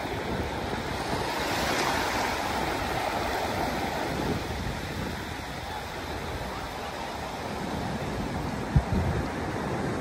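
Surf on a flat sandy beach: a steady rush of breaking waves and shallow foamy water washing in, swelling about two seconds in. One brief low thump comes near the end.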